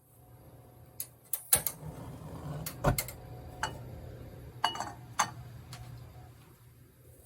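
Kitchen utensils and dishes being handled: about ten scattered clicks and knocks, the loudest twice in the first three seconds, over a steady low hum.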